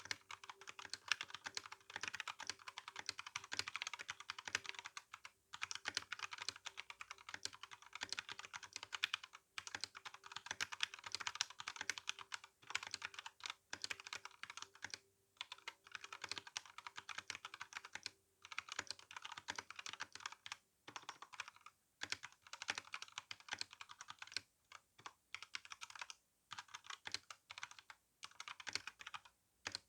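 Continuous fast typing on an RK61 mechanical keyboard with brown tactile switches and GSA keycaps: a rapid clatter of keystrokes, broken by short pauses every few seconds.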